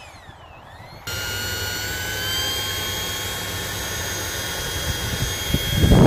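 Electric ducted fan of a Freewing F-22 model jet whining at steady power: a set of steady high tones over a rushing hiss that starts abruptly about a second in, after a quieter stretch in which a faint tone dips and rises again. A louder low rumble comes in near the end.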